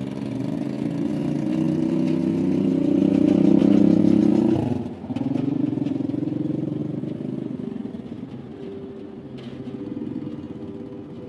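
A motor vehicle's engine running close by, growing louder for about four seconds, then dropping off sharply for a moment before it picks up again and slowly fades.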